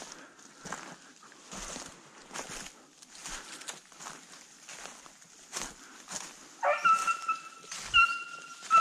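Footsteps crunching through dry leaf litter, roughly one step a second. Near the end, hunting hounds on a deer drive start baying with a long, held howl.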